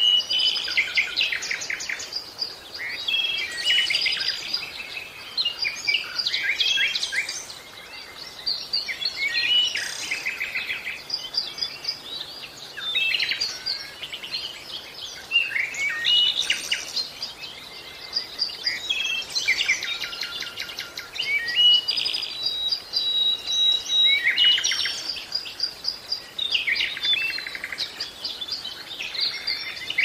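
Songbirds singing: a busy run of varied chirps, trills and fast stuttering phrases, coming in bursts a few seconds long, with one held whistle partway through.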